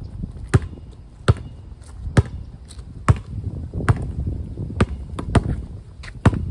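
A basketball dribbled on an outdoor concrete court: eight sharp bounces, a little under one a second.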